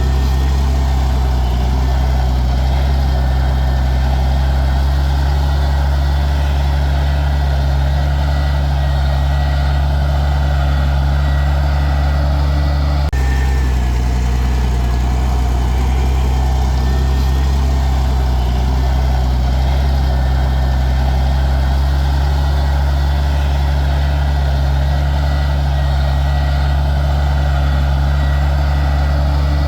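Heavy diesel engine of an earthmoving machine, such as a motor grader or bulldozer, running at a steady, even speed with a deep hum.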